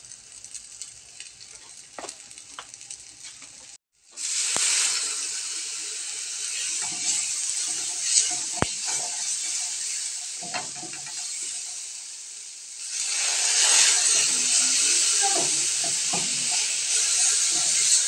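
Onion and tomato base in a hot nonstick frying pan sizzling, then hissing loudly from about four seconds in as added water boils off into steam, with a wooden spatula stirring and scraping the pan. The sizzle swells again about 13 seconds in.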